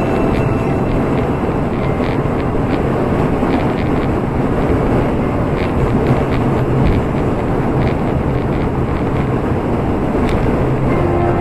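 Steady road and wind noise inside a car's cabin while driving on a highway.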